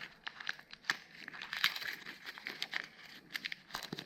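Plastic packaging being crinkled and pulled off by hand, a run of irregular small crackles and rustles.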